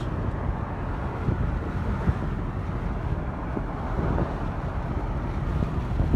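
A moving car's road noise with wind buffeting the microphone: a steady low rumble.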